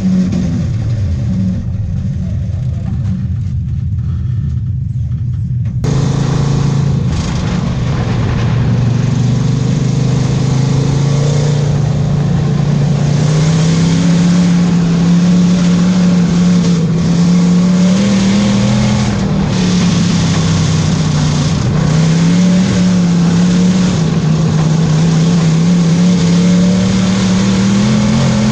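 Race car engine heard from inside the cockpit, held at low throttle for the first few seconds, then opened up about six seconds in and running hard, its pitch rising and falling as the car goes around the oval.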